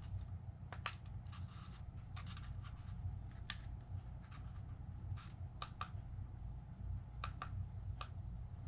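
Scattered small clicks and taps of the plastic casing of a drone remote controller being handled and fitted back together, over a low steady hum.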